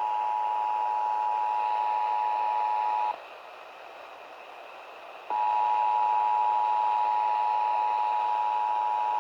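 Emergency Alert System attention signal heard over FM radio: the steady two-tone alert, two close pitches sounding together. It breaks off about three seconds in, leaving only radio hiss, and sounds again about two seconds later.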